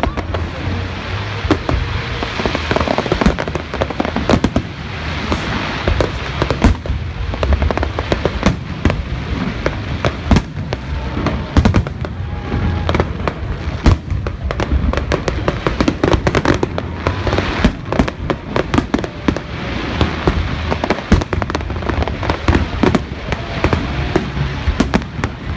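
Fireworks display: aerial shells bursting in a dense, unbroken run of bangs and crackles.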